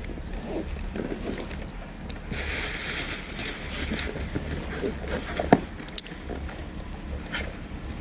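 Plastic bag rustling for a couple of seconds as parts are unpacked, then two sharp clicks of hard parts being handled, over a low steady hum.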